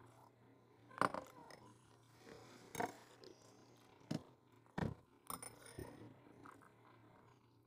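Metal spoons knocking and clinking against stainless steel bowls of soup, about six times, the loudest about a second in, amid soft eating sounds.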